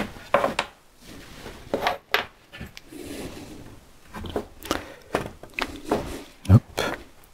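Wooden parts and small tools handled on a workbench: irregular light knocks, clicks and short scrapes of wood on wood, with one heavier knock about six and a half seconds in.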